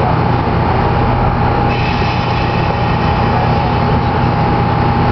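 SuperVia Série 1000 electric commuter train standing at a station platform, its onboard equipment running with a steady low hum and a steady high whine.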